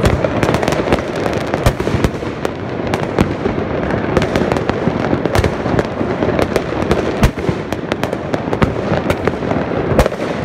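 A dense barrage of many fireworks going off at once: distant bangs merge into a continuous rumble, with sharp nearer cracks and pops several times a second.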